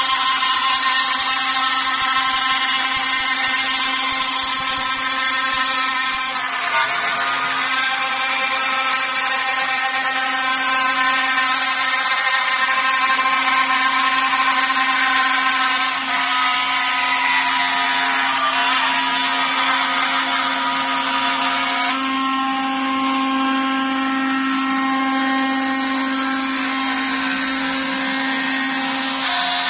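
Spindle of a five-axis CNC router running at speed while trimming a vacuum-formed plastic part: a steady whine over a cutting hiss, its pitch shifting a few times as the head moves.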